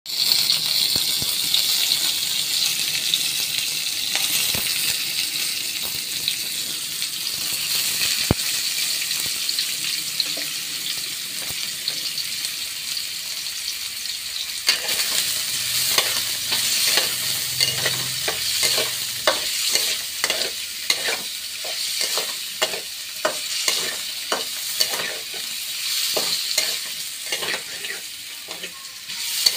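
Caramelised sugar sauce sizzling and bubbling in a metal pot. About halfway through it turns to frequent sharp crackling pops as peeled boiled eggs fry in the hot caramel.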